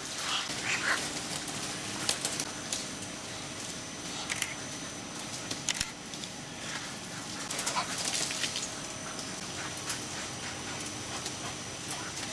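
Many caged ducks giving scattered short calls, with rattling on the wire cages, over the steady hum of large ventilation fans.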